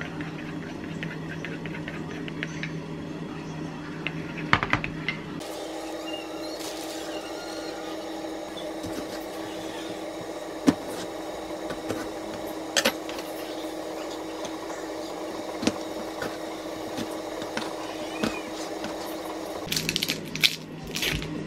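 Wooden spoon stirring and scraping thick yogurt in a ceramic bowl, then a chef's knife slicing a plum on a cutting board with a few sharp knocks of the blade on the board. Near the end, a paper carton crackles as it is torn open. A steady low hum of kitchen room tone lies under it all.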